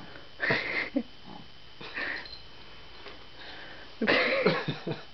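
A silky terrier's short breathy sniffs and huffs as it jumps on its hind legs for a ball: a few brief bursts, with a longer, louder one about four seconds in.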